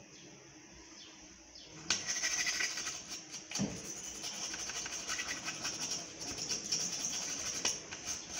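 Rapid scratchy scrubbing of a Samsung Galaxy J7 Prime's circuit board with a small cleaning brush, starting about two seconds in, to clean off moisture damage.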